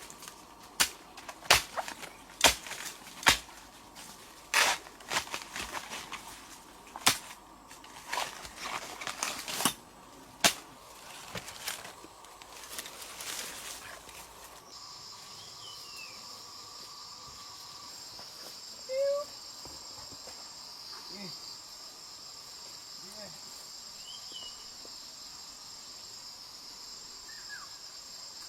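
A run of sharp knocks, some close together and some a second or so apart, like blows on wood or bamboo, through the first half. Then a steady high insect buzz with a few short bird chirps over it.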